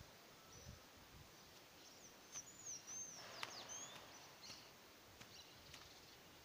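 Near silence with a bird calling: a few quick whistled chirps that swoop up and down, about two to four seconds in. A couple of faint low thuds come about a second in.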